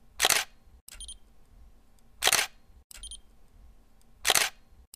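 Camera shutter sound effect, three times about two seconds apart. Each shutter is followed by a short click with a brief high beep.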